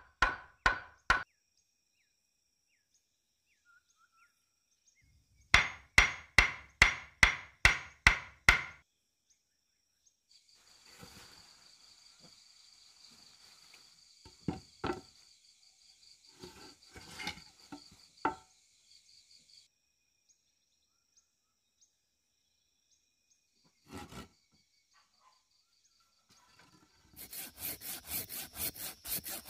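Hammering on wood: sharp, evenly spaced blows about three a second, a short run at the start and a longer run of about nine blows a few seconds later. A steady high insect buzz with scattered wooden knocks follows. Near the end come quick back-and-forth strokes of a folding hand saw cutting through a branch.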